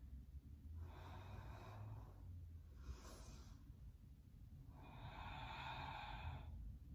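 A person breathing slowly and deeply, faint: three long breaths, the longest near the end.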